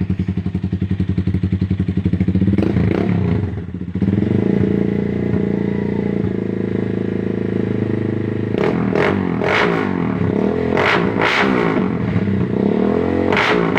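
Rusi Gamma motorcycle engine through an SC Project aftermarket exhaust, idling with an even pulsing beat, then revved up about two seconds in. After a brief drop near four seconds it runs higher, with a string of quick throttle blips in the second half.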